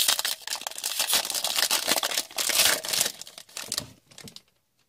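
Foil wrapper of a hockey card pack being torn open and crinkled by hand, a dense crackle that stops about four seconds in.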